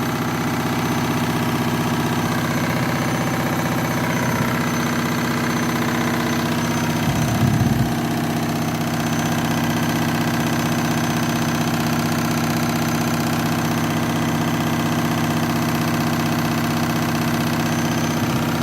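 Washing machine in its spin cycle, noisy, the drum and motor running at steady speed with a constant hum. A brief louder rattle comes about seven seconds in.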